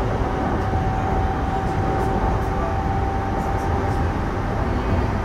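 Sotetsu 12000 series electric train running between stations, heard from inside motor car MoHa 12501: a steady rumble of wheels on rail with a steady high whine, the whine weakening a little past halfway.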